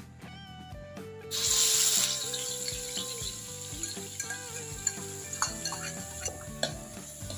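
Chopped fermented fish paste hitting hot oil in a wok: a sudden loud sizzle about a second in that settles into steady frying. A metal ladle scrapes and taps in the wok as chopped herbs are tipped in and stirred.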